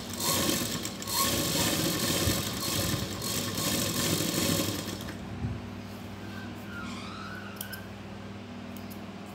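Domestic sewing machine stitching fabric, running fast and steady for about five seconds, then stopping.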